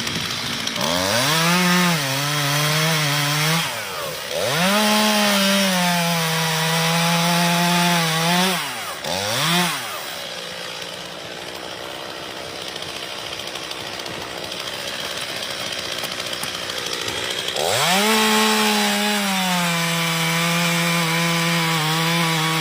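Two-stroke gas chainsaw revved to full throttle several times: each time the pitch sweeps up, holds high for a few seconds, then drops back. A quieter, steadier stretch in the middle runs until the saw is throttled up again near the end.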